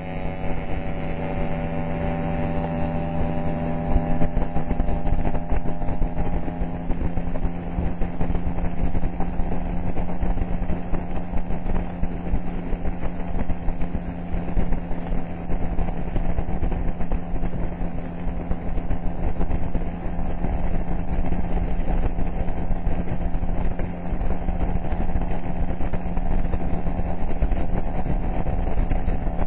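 Scooter engine running steadily at road speed, under heavy wind rumble on the microphone of a camera riding along. Over the first several seconds a higher engine note climbs slowly in pitch.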